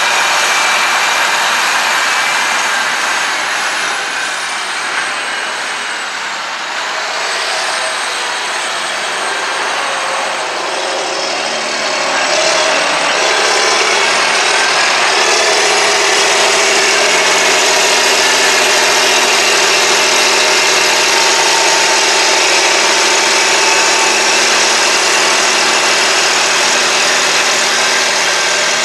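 Terra Gator 8133 self-propelled slurry applicator running steadily across the field, its engine working under load with a high whine over it. The sound dips slightly a few seconds in and grows louder again from about halfway.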